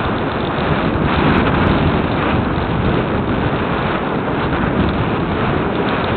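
Steady rushing wind noise on the microphone of a camera mounted on a radio-controlled glider in flight, from the airflow over the airframe.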